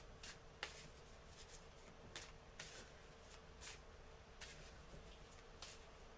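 Faint, scattered soft clicks and rustles of a deck of prayer cards being shuffled and handled, over a faint steady hum.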